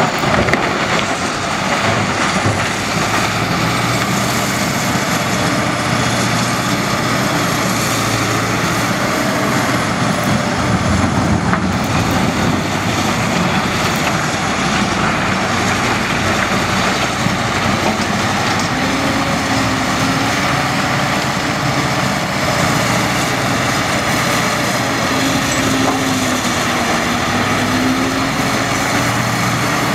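Caterpillar 992G wheel loader's large diesel engine working through a loading cycle, its pitch rising and falling as the machine backs up and turns, with a thin high whine above the engine throughout.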